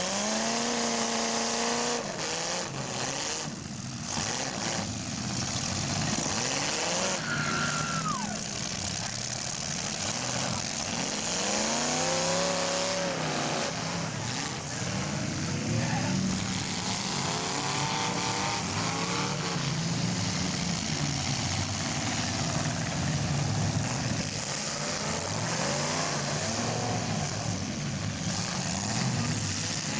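Demolition derby car engines revving hard again and again, their pitch sliding up and down as the cars accelerate and back off, over a steady wash of engine and arena noise.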